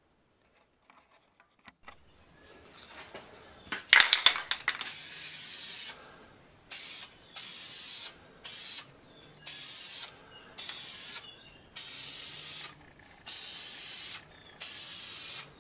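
Aerosol can of spray lacquer spraying in short hissing bursts, about eight of them, each half a second to a second long with brief pauses between. The bursts follow a short loud clatter about four seconds in.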